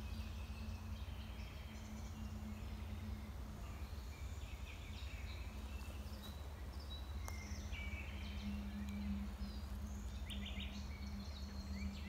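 Assorted forest birds chirping in short, scattered calls over a steady low rumble of light wind and a faint steady hum.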